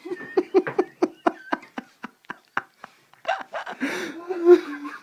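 A person laughing helplessly in short gasping pulses, about four a second, breaking into longer, fuller laughter about three seconds in.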